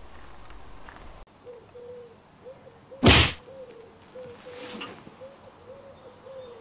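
A single loud, sharp swish about three seconds in, lasting well under half a second, over a faint wavering tone.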